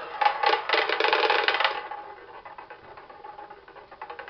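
Roulette ball rattling and clicking across the frets and pockets of a tabletop roulette wheel. The rattle is loud for about the first two seconds, then fades to fainter ticking as the wheel spins on.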